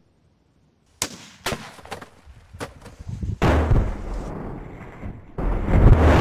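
Bora 12 sniper rifle shot: a sharp crack about a second in, quickly followed by a second crack. Then two heavy, rumbling bursts, near the middle and near the end, as the bullet strikes and shatters a block of ice at the target.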